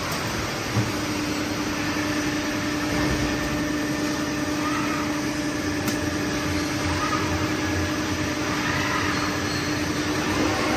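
Steady hum of a robot-tended CNC machining cell running, as an articulated handling robot arm moves between machines. A steady low tone comes in about a second in, and there is a faint click near the middle.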